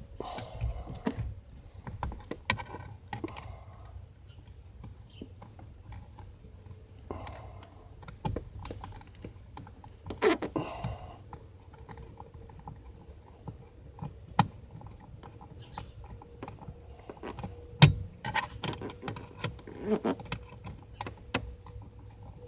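Scattered small clicks and taps of a screwdriver and loose screw hardware, with plastic trim being handled, as screws are worked out of a 1987 Mazda RX-7's steering-column shroud. One sharper knock comes near the end, and a faint steady hum runs underneath.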